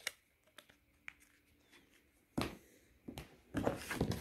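Small plastic clicks as the battery cover of an LG Chocolate 3 flip phone is pressed back into place, followed by handling noise: a louder knock about two and a half seconds in, another soon after, and rustling near the end.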